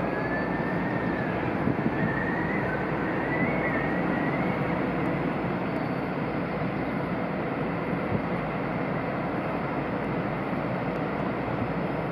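Steady rumbling background noise across open water, with a faint wavering high whistle during the first four seconds or so.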